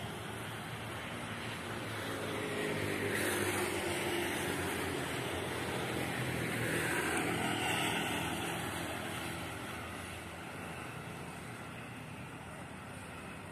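PT INKA battery tram running along the track, its electric drive whining with pitch glides over the rumble of wheels on rail; it grows louder for a few seconds, then fades as it draws away.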